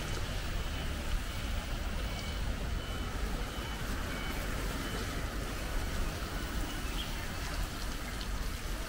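Steady low rumble and hiss of riding a bicycle along a wet street, with a short run of faint, high electronic beeps from about a second and a half to three and a half seconds in.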